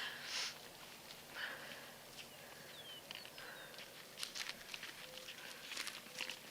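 Faint outdoor rustling and light steps through vegetation, with scattered soft clicks, and a few short, thin bird chirps near the middle.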